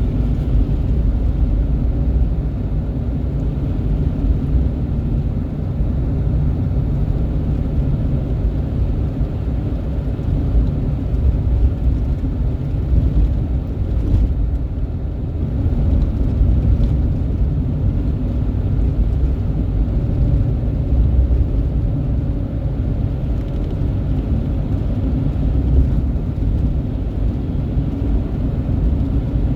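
Steady, loud low rumble, without speech or distinct events.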